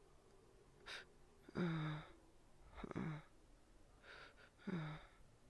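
A person's voice panting out of breath, faint: short noisy inhales alternate with voiced gasps that fall in pitch, about one a second.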